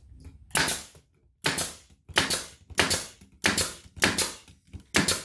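Brad nailer firing seven times in a steady run, about one shot every two-thirds of a second, each a sharp pop with a short tail, driving brads into glued wooden boards.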